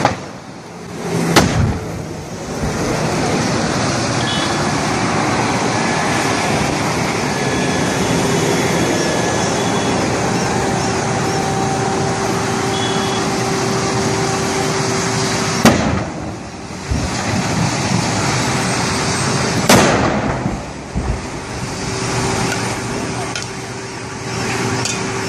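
Gas cylinders on a burning truck exploding: three sharp bangs, about a second in, about 16 s in and about 20 s in, over steady road noise.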